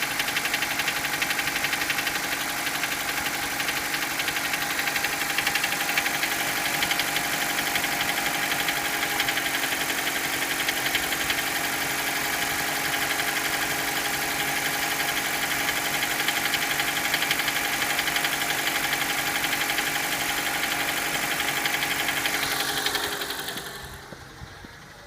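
Mitsubishi Colt engine running steadily at idle with a fast, even knock, the engine knock that the owner is recording as a fault. The sound falls away sharply about a second and a half before the end.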